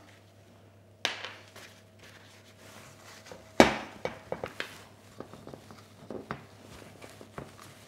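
A ceramic baking dish being handled and greased with buttered kitchen paper: a short rustle about a second in, a single loud clunk of the dish against the worktop, then light scattered knocks and rubbing as the paper is wiped around the inside of the dish.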